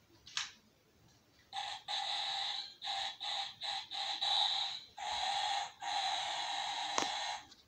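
A battery-powered toy train station playing its electronic sound effects through a small, tinny speaker, in a run of loud segments with short gaps, after a click as it is switched on.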